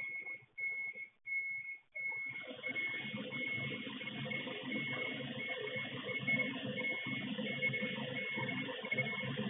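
A vehicle's warning beeper, such as a reversing alarm, sounds a steady run of high beeps about one and a half to two times a second. About two seconds in, the rumble of a heavy truck engine working joins and runs on under the beeps.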